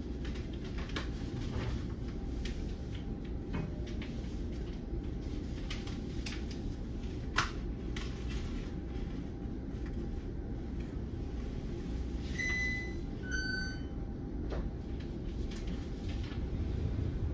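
Steady low rumble of a stationary NJ Transit Comet V rail car's onboard equipment, with scattered clicks and knocks. About twelve seconds in, a two-note falling chime sounds once, high then lower.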